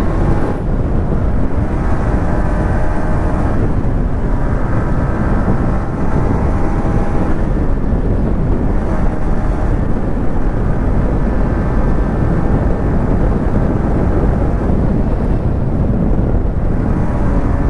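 Wind rushing over the microphone of a Yamaha MT-15 cruising at a steady speed, with the single-cylinder engine's steady note underneath.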